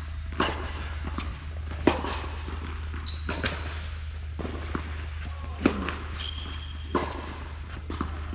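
Tennis ball being struck and bouncing in an indoor tennis hall: sharp knocks, four of them, mostly about a second and a half apart, over a steady low hum.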